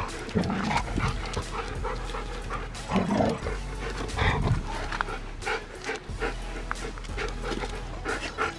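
Several Siberian huskies panting as they crowd together, with a few short louder bursts of noise, the loudest about three seconds in.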